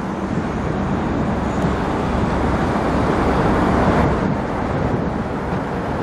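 Road traffic noise: an even rush of tyres and engines that swells to a peak about four seconds in and then eases off, like a vehicle passing close by.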